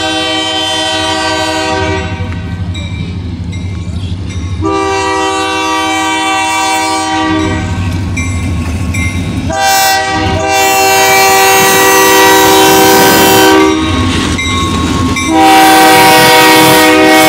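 Kiamichi Railroad diesel locomotive's chord air horn sounding a series of long blasts for the grade crossing. Under the horn the locomotive rumbles, growing louder as it comes up and passes close by, with wheels clacking on the rail.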